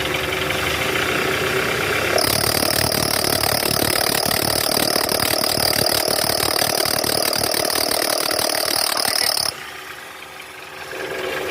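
Toyota Alphard's 2.4-litre 2AZ-FE four-cylinder engine, in reverse with the AC on, revved from about two seconds in and held for about seven seconds. It makes a really loud growl and squeal (ngorok and decit), then drops back suddenly to idle. The noise comes from the AC belt tensioner, whose weakened spring lets it vibrate under load.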